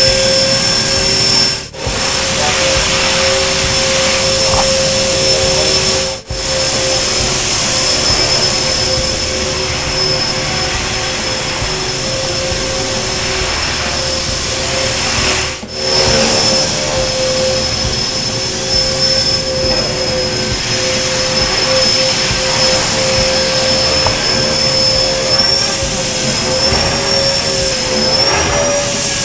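E-flite Blade 400 electric RC helicopter in flight: a steady whine of its electric motor and drivetrain with the spinning rotor, holding one pitch, then wavering slightly up and down near the end. The sound drops out briefly three times.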